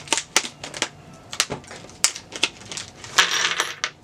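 Close-up handling of a fingerboard hardware pack: a string of sharp small clicks and taps, then a brief crinkling rustle of packaging near the end.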